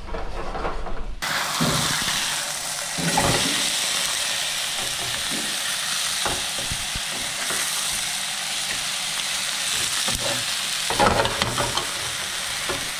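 A coil of impala boerewors sizzling steadily as it fries in olive oil in a frying pan, starting abruptly about a second in. A few knocks and scrapes of a spatula against the pan come through the sizzle.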